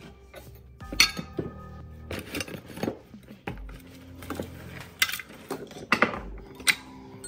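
Clanks and clinks of rusty hoverboard parts (hub-motor wheels and a metal disc) being handled and set down in a plastic tray, a sharp knock every second or so. Soft background music with a low beat runs underneath.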